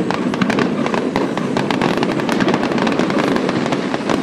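Fireworks display at full barrage: many shells and crackling star bursts going off together, many sharp cracks a second over a continuous rumble.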